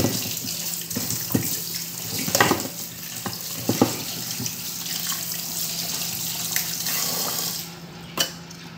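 Kitchen tap running into an aluminium pot while hands turn and rinse salted pork pieces, with a few knocks against the pot. The running water stops near the end.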